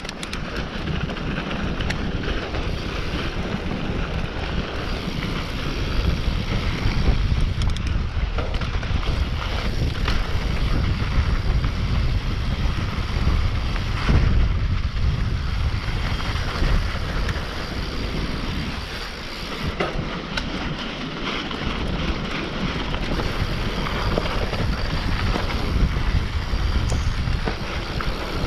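Wind buffeting the microphone of a mountain bike descending a dirt trail, over the steady rumble of tyres on dirt and rocks, with small clicks and rattles from the bike.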